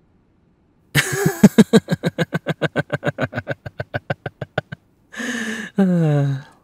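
A man laughing: a long run of quick 'ha's that fade away, then a breath out and a short hum falling in pitch.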